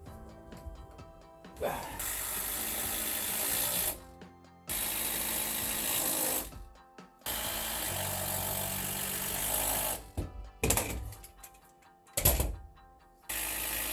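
A power screwdriver driving long screws into sistered 2x6 ceiling joists, in about four runs of two to three seconds each, cutting in and out abruptly, with sharp knocks in between. Background music runs underneath.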